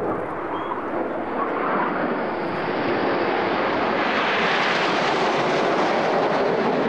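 Jet noise from a close formation of nine BAE Hawk T1 jet trainers with Adour turbofan engines flying over. The noise builds, growing louder and brighter about halfway through.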